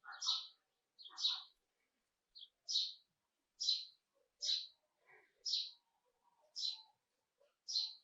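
A bird chirping, a short high note repeated about once a second, nine or so times.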